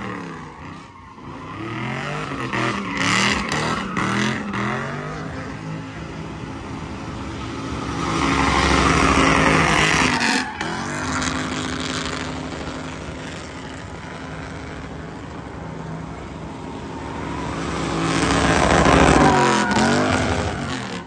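Drift car's engine revving hard, its pitch rising and falling again and again, while the rear tires squeal and skid as the car slides sideways around tire barrels. It is loudest twice: about eight to ten seconds in, and again near the end.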